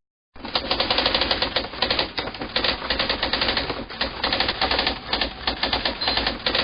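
Rapid, continuous handgun fire, shots following one another several times a second, starting abruptly just after the start.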